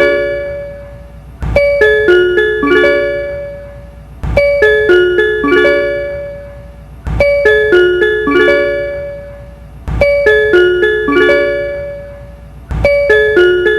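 Kansai Airport Rapid train's onboard announcement chime for intermediate stops: a short phrase of bell-like notes that rings and fades, looped back to back about every three seconds.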